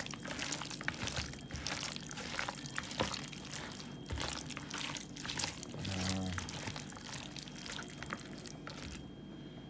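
Raw chicken pieces squelching and slapping wetly as they are squeezed and turned by hand in a bowl of seasoning. The mixing goes on in quick irregular smacks and dies down about a second before the end.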